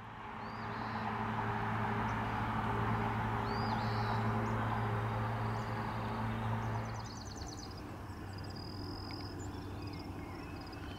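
A steady mechanical hum with a low drone, like an engine running, for about seven seconds. After that it drops to a fainter hum while small birds chirp and trill repeatedly.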